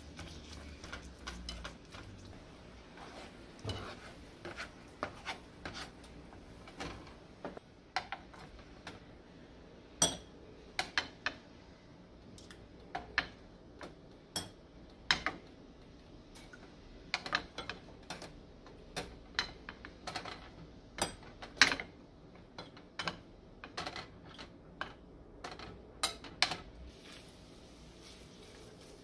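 Kitchen utensils working in a nonstick frying pan of browning ground beef: a spatula scraping and knocking against the pan and a spoon clinking as grease is spooned out of the tilted pan into a small dish. Irregular sharp clacks, several a second at times, over a faint steady background.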